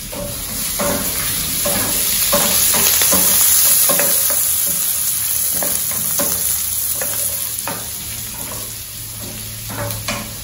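Onion, curry leaves, cashews and dals sizzling in oil in a kadai, stirred with a wooden spatula that scrapes the pan in frequent short strokes. The sizzle swells a few seconds in, then eases.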